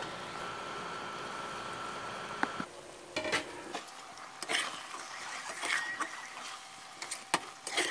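Masala sizzling in a pressure cooker as raw chicken pieces are added, with a metal spoon scraping and clinking against the pot as the chicken is stirred in. A steady sizzle at first, then scattered scrapes and clinks from about three seconds in.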